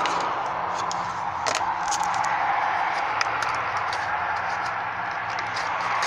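Plastic dashboard side trim panel being pried and pulled loose with a plastic trim removal tool: scattered small clicks and scrapes over a steady background hiss.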